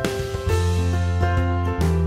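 Background music: keyboard chords over a deep held bass that comes in about half a second in, changing to a new chord near the end.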